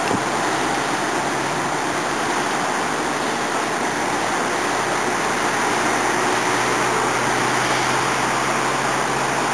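Steady wash of distant road traffic heard from high above, an even rushing noise with a low steady hum under it.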